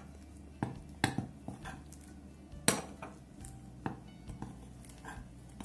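Metal spoon clinking and scraping against a ceramic plate while stirring a dry flour-and-spice breading mix: a series of irregular clinks, the loudest a little under three seconds in.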